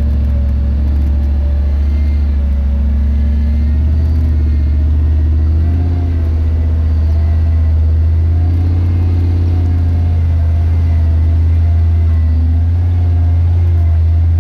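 The 5.2-litre V8 of a 1995 Jeep Grand Cherokee runs steadily at low revs under load as it crawls up a steep dirt trail, a deep continuous engine rumble.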